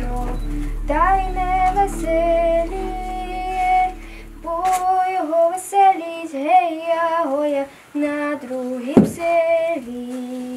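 A woman singing a slow, mournful folk song in held, bending phrases, with the words 'sad, he's sad, because his joy lives in another place'. A low steady hum underneath fades out about halfway through.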